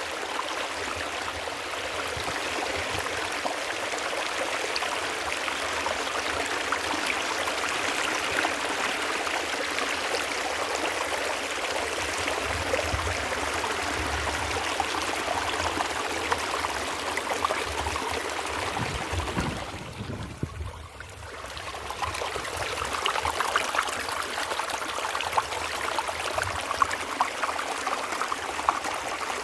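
Creek water running steadily. It dips briefly about two-thirds of the way through, then picks back up.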